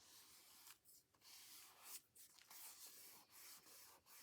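Faint rubbing and rustling of paper being handled, in stretches with brief pauses.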